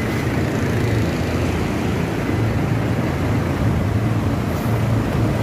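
Steady low mechanical drone that holds an even level throughout.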